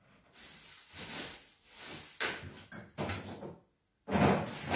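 Kitchen cupboard and drawer noises: several irregular knocks and rattles, with sharp ones about two and three seconds in, a short break, and the loudest stretch near the end.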